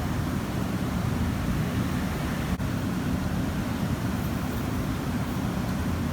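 Steady low rumble of background noise, with a brief dip in level about two and a half seconds in.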